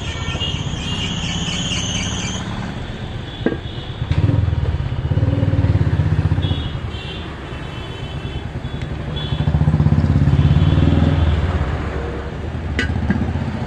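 A motor vehicle engine running, its low rumble swelling louder twice; a sharp tap about three and a half seconds in and another near the end.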